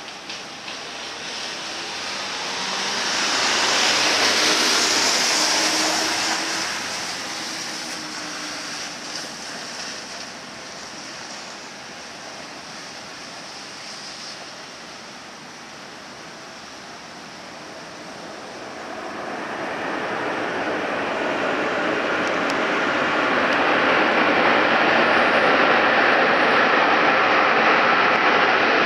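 Four-engine Airbus A340-600 jet rolling out on a wet runway after landing: a broad rushing noise of its engines and spray that grows louder over the last ten seconds as the aircraft comes nearer. A shorter swell of hiss rises and fades a few seconds in.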